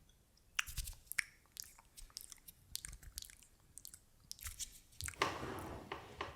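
Close-up chewing: a string of irregular sharp crunches and clicks, then about five seconds in a louder rough hissing noise sets in.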